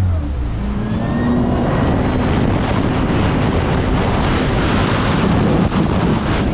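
Supercharged engine of a Kawasaki Ultra 310 LX-S jet ski throttling up, its pitch rising over the first couple of seconds, then running hard under load with rushing water and wind noise.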